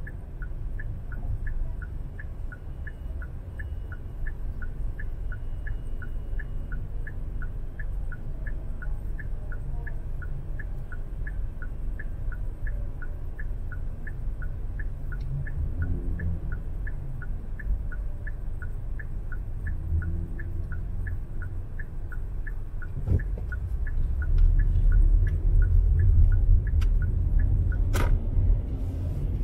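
Low, steady street-traffic rumble with a faint regular ticking about three times a second throughout; the rumble grows louder near the end.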